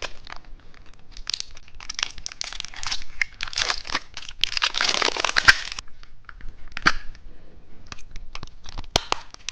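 Candy packaging crinkling and tearing as a car-key-shaped candy is unwrapped, in irregular rustling bursts, then scattered sharp clicks in the last few seconds.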